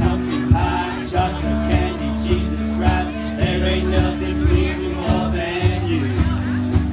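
Mixed choir of men's and women's voices singing sustained harmonies over a low bass line and a steady beat of a little under two strokes a second.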